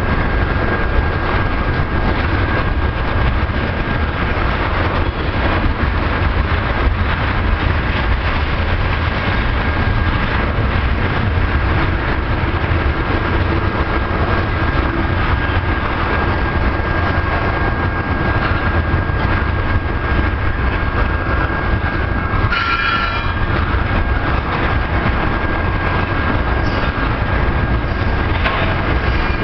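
Freight train of crude oil tank cars rolling past, a loud steady rumble of wheels on rail with a thin steady whine over it. A brief high squeal sounds about 22 seconds in.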